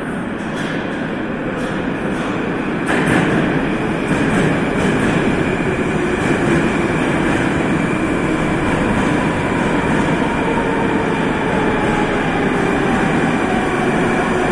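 Metro train approaching through the tunnel into an underground station: a loud, steady rumble of wheels on rail that grows louder, stepping up about three seconds in. Near the end a faint falling motor whine comes in as the train slows to stop.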